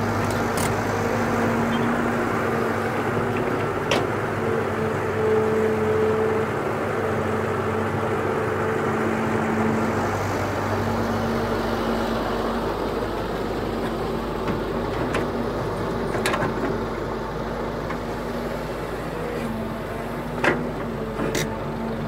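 Caterpillar hydraulic excavator's diesel engine running steadily under digging work, with a steady hum whose low note changes about halfway through. A few short sharp knocks, the loudest near the end.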